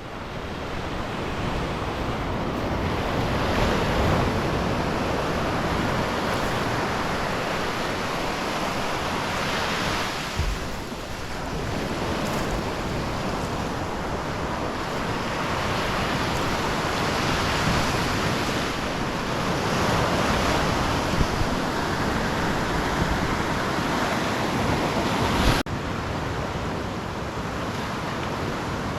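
Sea waves breaking and washing up on a beach in slow swells, with wind gusting on the microphone.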